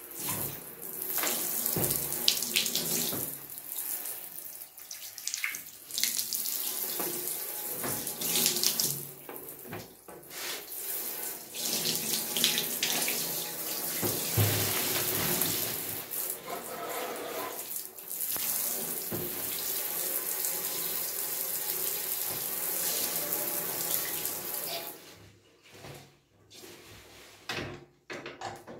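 Handheld shower head spraying water into an empty bathtub, the hiss of the spray rising and falling as it is moved about. The water is shut off near the end.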